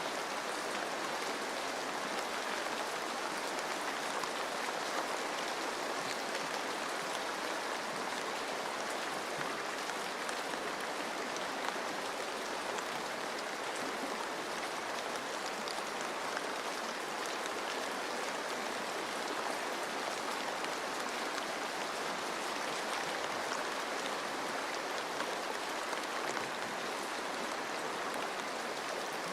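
Steady rain pattering on forest leaves, mixed with the even rush of a flowing stream.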